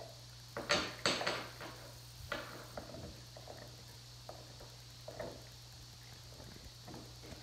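A Rottweiler gnawing on a chew bone: irregular crunches and clicks, loudest in the first two and a half seconds, then fainter and more spread out.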